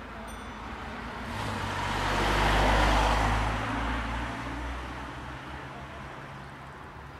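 A van driving past: engine hum and tyre noise swell to a peak about three seconds in, then fade away.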